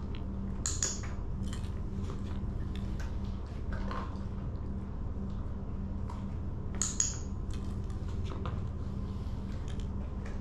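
A dog-training clicker clicking sharply twice, about a second in and again near seven seconds, marking the dog's behaviour for a treat. Fainter ticks and taps come in between, over a steady low hum.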